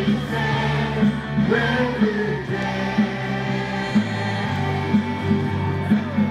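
Live school band playing a song with a steady beat, with voices singing along.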